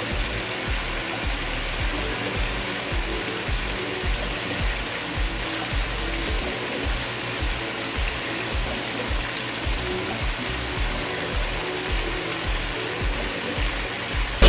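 Chicken gravy simmering in an open pan: a steady sizzling hiss with low, irregular bubbling underneath.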